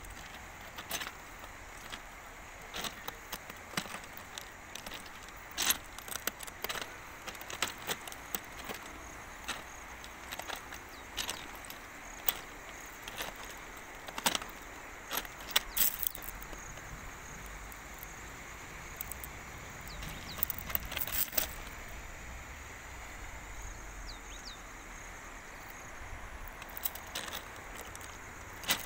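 Footsteps crunching on the loose stone ballast of a railway track, irregular steps with a couple of pauses, over a steady background hiss.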